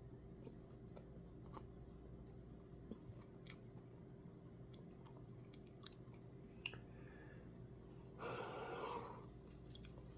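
Faint chewing and mouth clicks from someone eating a spoonful of soft-serve Blizzard with cookie pieces, and a short breathy exhale about eight seconds in.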